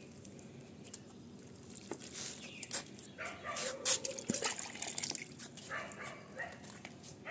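A dog calling several times, in short pitched calls from about two seconds in to past six seconds, the loudest near the middle.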